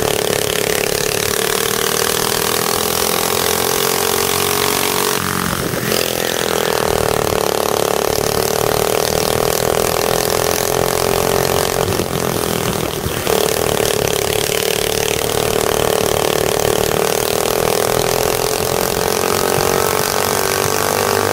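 Go-kart engine running hard on track, heard from onboard a kart, with a steady high engine note. Its pitch breaks and drops briefly about five seconds in and again about twelve seconds in, then climbs back up as the kart accelerates again.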